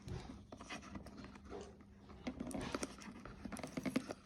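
Cardboard box packaging being worked open: scattered clicks, scrapes and rustles as the clear tape is cut and pulled off, busier in the second half.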